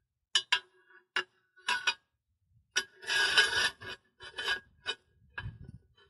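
Steel tire irons scraping and clicking against an alloy wheel rim and the tire bead as they are worked in between bead and rim. A run of short clicks and scrapes, with a longer rasping scrape about three seconds in.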